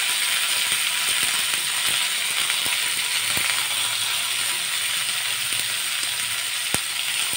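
Boiled potato, cauliflower and bean pieces frying in oil in a kadai: a steady sizzle with a few sharp clicks, the loudest near the end.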